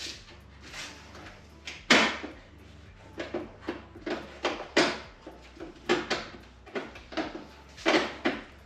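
Hands working the plastic trim clips and fittings of a car's trunk lid: irregular plastic clicks and knocks, the loudest about two, five and eight seconds in.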